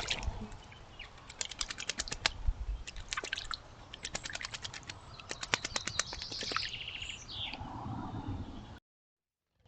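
Birds at a garden pond calling, with several runs of rapid dry chattering clicks and a few short higher calls; the sound cuts off suddenly near the end.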